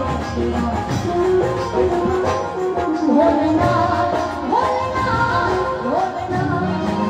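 Live Indian folk music played through a PA: a woman singing a gliding melody over dhol drum and keyboard accompaniment.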